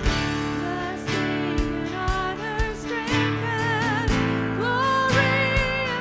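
Worship music: a singer holding long notes with vibrato over strummed guitar and a steady drum beat.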